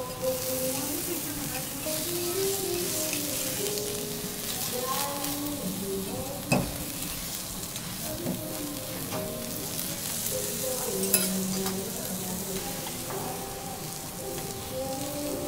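Kuroge Wagyu beef sizzling steadily on a hot steel teppanyaki griddle as it is sliced, with two sharp clicks of metal utensils on the griddle plate, about six and a half and eleven seconds in. Soft background music plays underneath.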